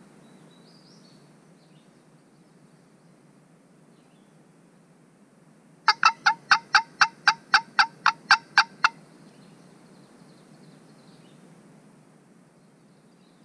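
Turkey yelping: a run of about a dozen loud, sharp yelps, about four a second, lasting some three seconds about halfway through.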